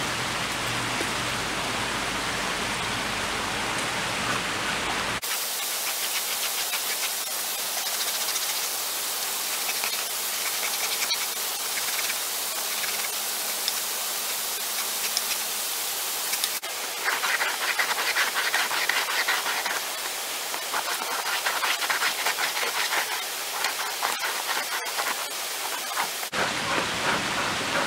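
Tanned deer hide being drawn back and forth over the thin metal blade of a pole-mounted softening stake, a scratchy rubbing that breaks up the fibres as the hide dries, over the steady rush of a creek. The sound changes abruptly about five, sixteen and twenty-six seconds in.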